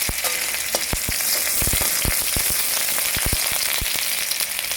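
Hot cooking oil sizzling in a pan with frequent sharp pops and crackles, as cumin seeds fry in it.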